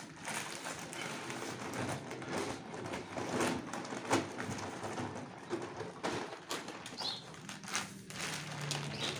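Cement powder being emptied from paper sacks onto a heap of sand, a soft rushing pour with paper rustling and a few knocks, the loudest about four seconds in. A bird calls in the background.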